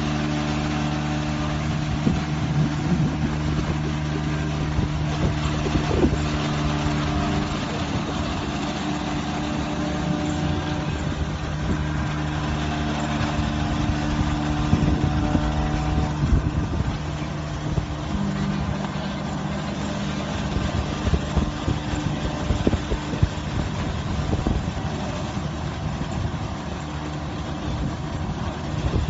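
Hydraulic sawdust and straw compactor press running: a steady motor and hydraulic pump hum with irregular knocks and clanks. The hum's pitch shifts slightly about two-thirds of the way through.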